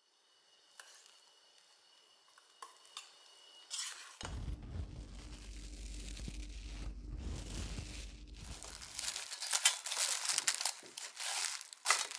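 Plastic cling film crinkling and crackling as it is pulled and pressed into a stainless steel bowl, loudest in the last few seconds. Before it comes a steady low rumble lasting several seconds.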